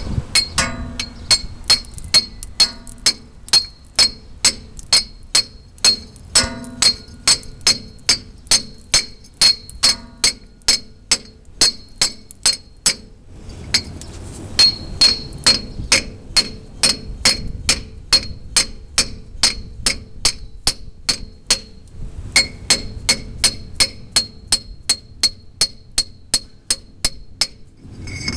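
Hammer striking a pipe used as a driver, tapping a heated 40-tooth reluctor ring onto a 700R4 transmission's tail shaft. Steady metallic taps, about three a second, each with a ringing tone, with a short pause about halfway through.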